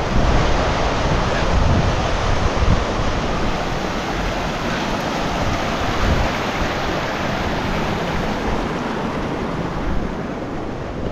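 Wind buffeting the camera microphone: a steady rushing noise with gusty low rumbles, easing a little near the end.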